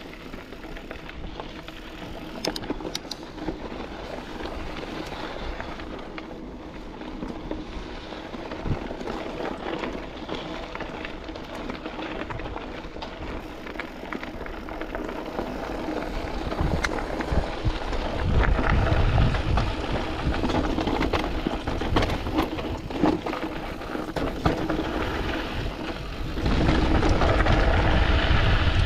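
Canyon Spectral AL 6.0 mountain bike descending a dusty, rocky trail: tyres crunching over gravel and stones, with frame and drivetrain rattles and knocks. Wind buffets the chest-mounted GoPro, and the rumble grows louder as speed picks up, most of all in the last few seconds.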